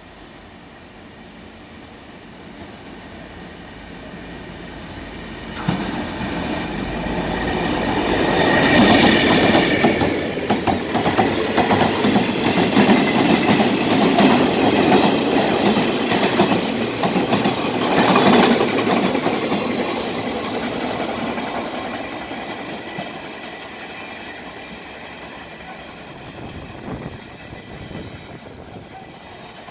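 Freight train passing through a station: it grows louder as it approaches, turns loud with a sudden jump about six seconds in, carries on with many sharp knocks from the wheels, then fades as it moves away.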